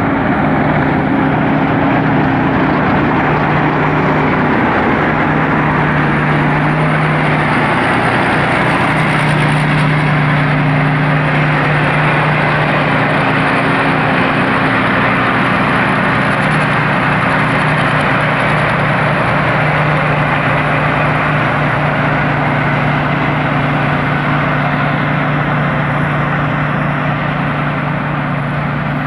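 Thai Seng Yont combine harvester running steadily while harvesting rice: a steady diesel engine hum under a loud, dense mechanical noise, with a faint high whine above it.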